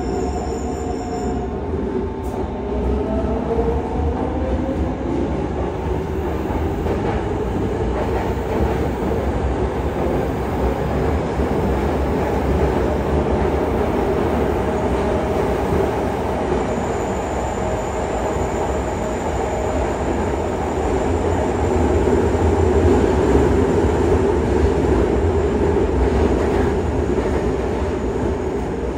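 Running noise inside a Yokohama Municipal Subway 3000A car: a steady rumble of the wheels on the rails under the whine of its Mitsubishi GTO-VVVF traction inverter and motors. The whine glides up in pitch a few seconds in and later holds steady tones. The whole sound grows louder in the later part.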